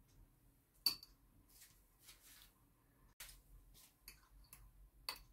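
A few faint, sharp clicks of two metal forks touching a bowl while croquettes are turned in beaten egg; the clearest click comes about a second in.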